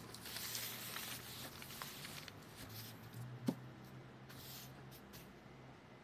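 Sheet of calligraphy paper rustling and sliding as it is shifted by hand, with one sharp tap about three and a half seconds in.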